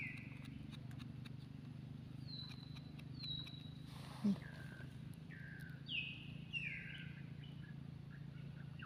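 Wild bird calling: short whistled notes that slide downward, repeated every second or so, some higher and some lower, over a steady low hum and faint clicks. A brief low sound is heard about four seconds in.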